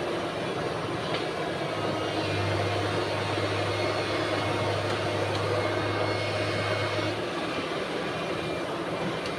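Heavy diesel engine of an excavator running steadily at a logging site, with a low hum that fades out about seven seconds in.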